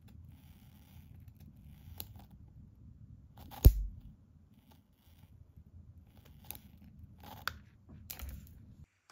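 Electrostatic flock applicator running with a low, steady hum that stops shortly before the end. Several sharp clicks or snaps sound over it; the loudest, with a thump, comes about a third of the way in.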